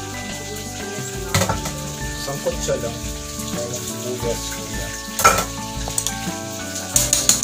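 Dishes and utensils being hand-washed at a stainless-steel kitchen sink: a steady sizzling hiss, with clinks and clatters about a second and a half in, around five seconds in, and a cluster near the end. Background music with held notes plays underneath.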